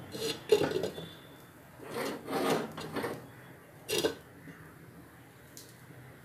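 A cooking utensil scraping and stirring chicken in a pan, a few short scrapes in the first four seconds, then only a faint low hum.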